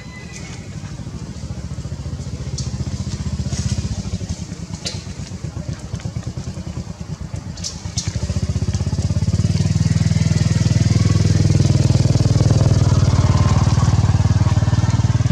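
A motor vehicle engine running, with a steady low pulsing rumble that grows louder about halfway through. A few sharp clicks are heard in the first half.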